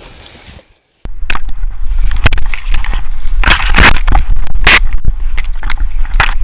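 Dry reed stalks crackling and snapping as they are pushed through, in irregular bursts of crunching with a few louder ones, over a steady deep rumble on the microphone.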